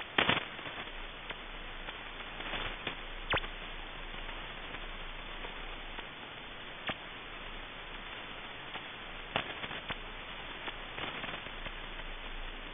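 Shortwave receiver tuned near 5000 kHz giving a steady hiss with irregular sharp clicks and short crackles: a burst just after the start, a sharp click about three and a half seconds in, and more scattered through the rest.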